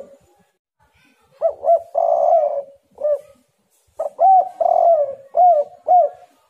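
Spotted dove cooing: two call phrases, each a few short rising coos around a longer rolling coo, the first starting about a second in and the second about four seconds in.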